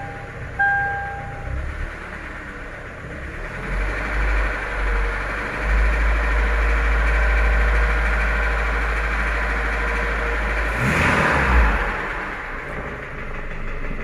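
Toyota Prado's 2TR-FE 2.7 L four-cylinder petrol engine running with a bad knock, cause not yet diagnosed. The revs rise about four seconds in and hold near 2000 rpm, peak briefly near eleven seconds, then settle back.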